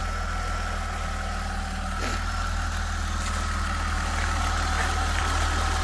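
BMW E93's engine idling steadily from a cold start with its mass airflow sensor unplugged. The even idle marks the MAF sensor as the cause of the car's rough idle.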